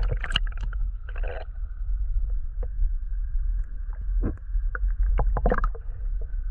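Muffled underwater sound of a shallow river heard through a submerged camera: a steady low rumble of the current with scattered clicks and knocks.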